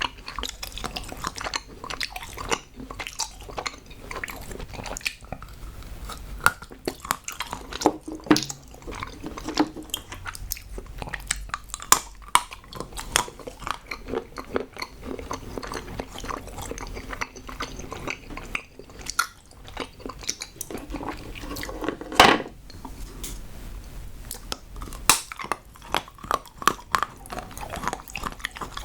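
Close-miked chewing and biting of solid chocolate: irregular sharp snaps and crunches as pieces break off, with the loudest snap about two-thirds of the way through.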